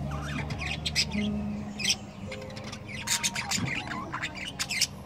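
Small caged parrots chattering in short, scratchy squawks and chirps that come in quick clusters, over a low steady hum.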